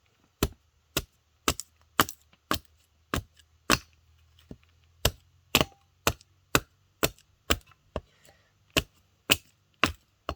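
Hatchet chopping wood on the ground: sharp strikes about two a second, pausing briefly twice. Now and then there is a tink where the blade hits a rock.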